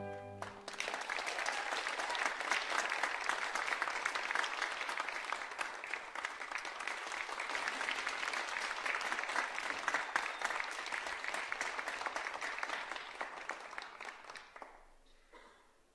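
The music ends about half a second in, and an audience breaks into applause, which fades away near the end.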